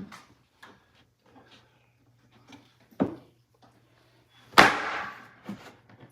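Wooden knocks and bangs from framing lumber being handled: a sharp knock about three seconds in, then a loud bang that rings on briefly about a second and a half later, with a few faint clicks between.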